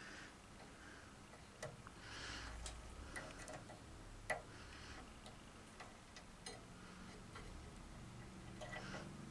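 Faint, irregular light clicks and metallic taps from hands working on a bandsaw's roller-bearing blade guides, made from skate ball bearings, and an Allen key, with a soft rustle a couple of seconds in.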